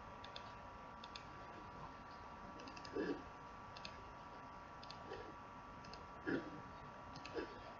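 Faint computer mouse clicks, many in quick pairs, over a steady faint electrical whine. A few soft, dull thumps, the loudest near the middle, stand out among the clicks.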